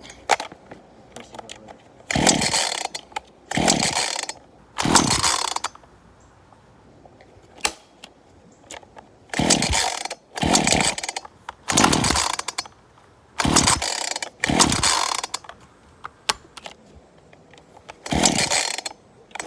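Ryobi 18-inch two-stroke chainsaw being pull-started cold: nine short yanks of the recoil starter cord in quick runs of three, three, two and one, the engine cranking with a falling whir each time but not catching.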